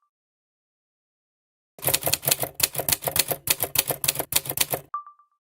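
Typewriter keys clacking rapidly, about six strokes a second for some three seconds, ending in a single ringing bell ding.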